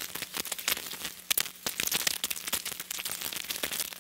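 Sheeting of a deflated inflatable bounce house rustling and crackling irregularly as it is pulled and spread out by hand.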